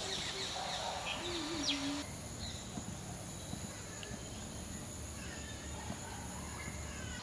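Outdoor bird and insect ambience: a few short bird calls and chirps in the first two seconds, then, after an abrupt change, a steady high-pitched insect drone with faint scattered bird chirps.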